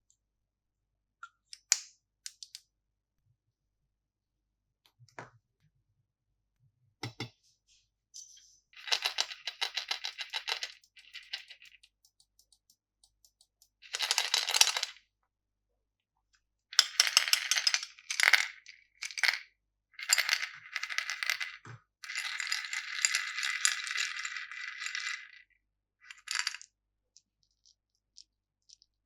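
Small hard candies rattling and clattering against plastic packaging in several bursts of a second or more each, with a few single clicks before them.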